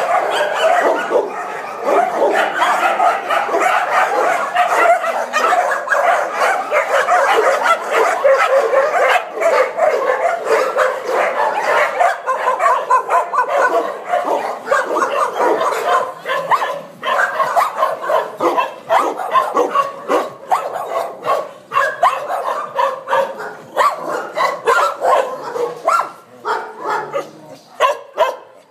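A shelter full of dogs barking all at once: a dense, loud chorus of overlapping barks and yips from many dogs. The din thins out and drops in level over the last few seconds, leaving more separate barks.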